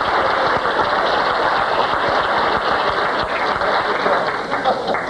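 Steady crowd noise from an audience in a hall, a dense wash of sound with no single voice standing out.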